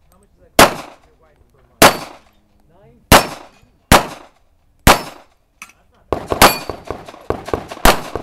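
Gunshots fired at steel plate targets, each hit ringing with a metallic clang. The reports come about a second apart at first, then in a quicker flurry of shots and clangs in the last couple of seconds.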